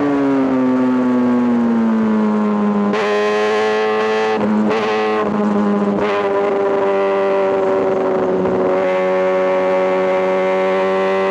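Kawasaki ZX-6R inline-four engine running at high revs. Its pitch falls over the first couple of seconds, then holds fairly steady with small shifts.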